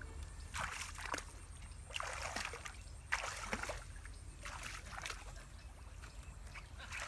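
Water sloshing and splashing as a person wades knee-deep through a muddy pond, in irregular surges about once a second.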